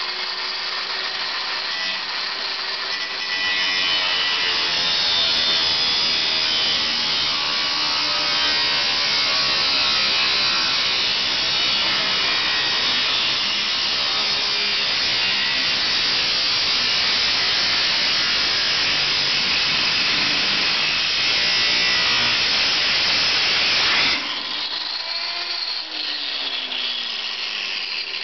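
Angle grinder with a cutoff disc cutting through a car's steel roof pillar, a loud, steady grinding that starts a few seconds in. About 24 seconds in, the cut stops abruptly and a quieter, falling whine follows.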